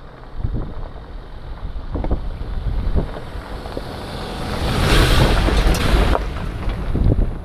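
Land Rover Defender driving over the microphone on a gravel track: engine rumble and tyres crunching on stones, swelling to the loudest point about five seconds in as it passes overhead, then easing off. Wind buffets the microphone throughout.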